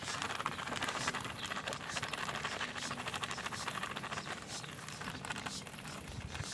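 Thin plastic bag crinkling in a dense run of small crackles as ground çiğ köfte spice is squeezed and shaken out of it onto dry bulgur.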